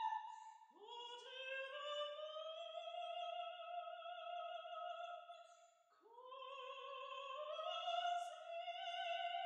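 Music: a slow, wordless, operatic-sounding melody of long held, wavering high notes. One note fades at the start, then a new note slides up into its pitch and is held, and a second slide-up comes at about six seconds.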